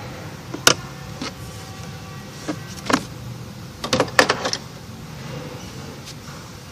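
Several sharp clicks and knocks of tools and parts being handled during engine work, with a cluster of them about four seconds in, over a steady low hum.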